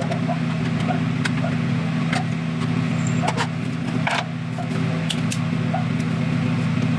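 Steady low mechanical hum, like a running motor or engine, with scattered light clicks and taps; the loudest tap comes about four seconds in.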